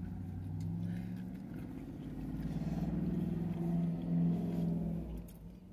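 A motor vehicle's engine running nearby, growing louder over a few seconds and fading away near the end, as a vehicle passes by.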